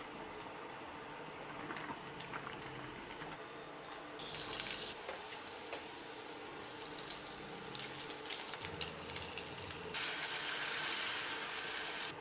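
Kitchen tap running: a short rush of water about four seconds in, light knocks and clicks, then a steady flow into the sink for the last two seconds.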